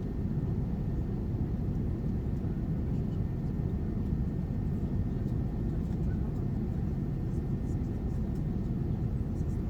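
Steady low rumble of an Airbus A380-800's engines and airflow, heard inside the economy cabin.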